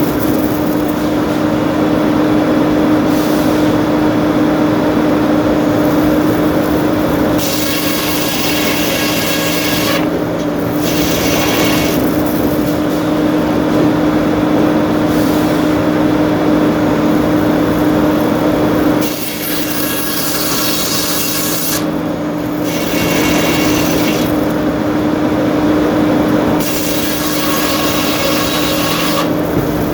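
Sawmill machinery running with a steady hum while a saw cuts through a log. Stretches of hissing high noise come and go every few seconds as the cut goes on, with a short drop in level about two-thirds of the way through.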